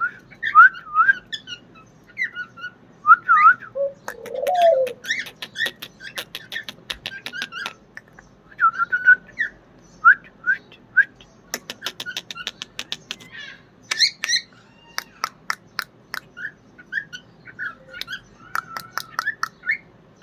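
Pet cockatiel chirping and whistling short, rising and falling notes again and again, with runs of sharp clicks in between.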